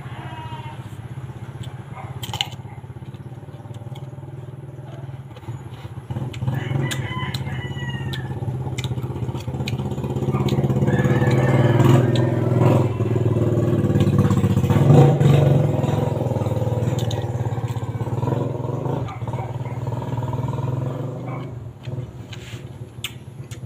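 A motor engine running steadily, growing louder about halfway through and fading near the end. A rooster crows once about seven seconds in, and a few sharp crunches come from raw green mango being bitten.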